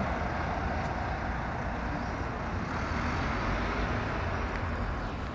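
Steady city street traffic noise: vehicles running and passing on the road.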